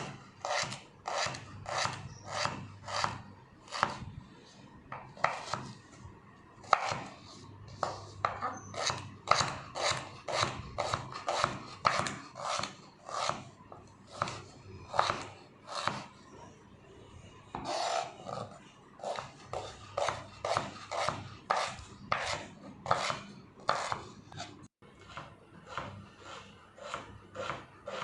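Knife finely chopping peeled ginger on a chopping board: a steady run of sharp chops, about two to three a second, with a few short pauses.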